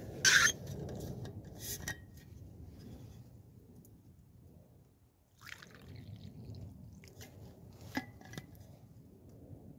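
Hot drink poured from a steel vacuum flask into a metal cup, liquid splashing in. A brief sharp clatter comes about half a second in, and a light metal clink near the end.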